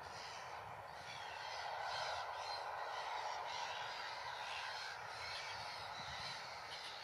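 Steady hum of distant engine noise, swelling slightly about two seconds in, with faint bird calls behind it.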